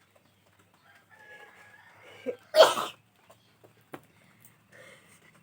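A woman sneezes once, sharply, about two and a half seconds in, just after a short catch of breath.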